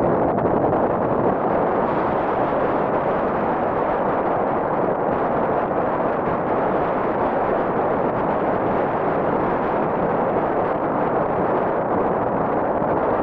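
Steady roar of a river running high and fast, swollen by typhoon rain.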